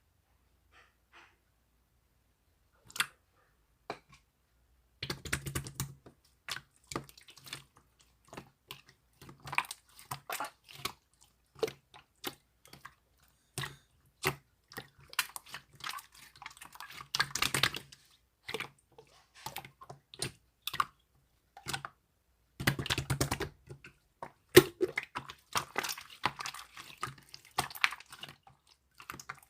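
Many quick, irregular clicks and taps, like typing, starting a few seconds in after near silence, with two short louder rustling bursts among them.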